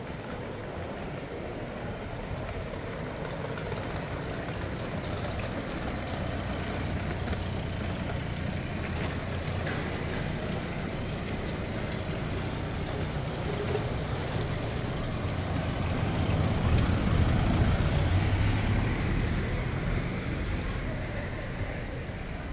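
A motor vehicle's engine rumble in the street, slowly growing louder, peaking about three-quarters of the way through, then fading as it passes.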